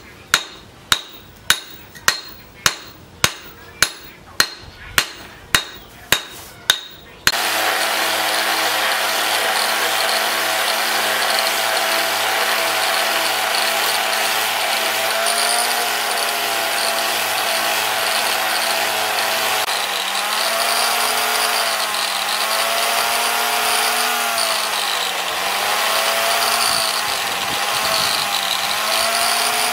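Hammer blows on a steel post anvil, about two a second, until an abrupt switch about a quarter of the way in to an angle grinder with a sanding disc running steadily. In the second half its pitch dips and recovers again and again as a wooden knife handle is pressed into the disc.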